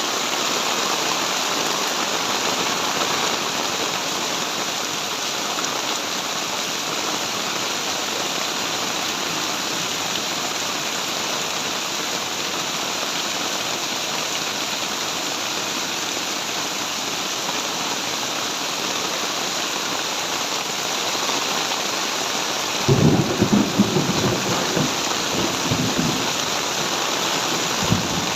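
Heavy tropical rain pouring steadily. Near the end a sudden low rumble of thunder breaks in and rolls on for a few seconds.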